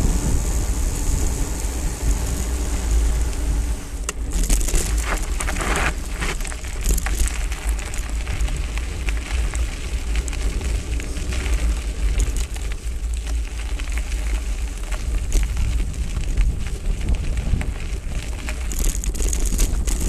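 Hardtail mountain bike riding over dirt and loose stones, its tyres crackling and crunching, under a steady low rumble of wind on the microphone. The crackling gets busier from about four seconds in.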